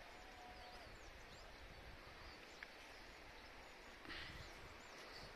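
Near silence with faint, high bird chirps scattered throughout; a thin steady tone lasts about a second and a half near the start, and a soft rustle comes about four seconds in.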